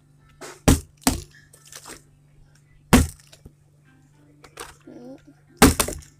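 A plastic bottle being flipped and landing on a laminate floor, giving sharp knocks: two close together about a second in, one loud knock near three seconds, and a double knock near the end.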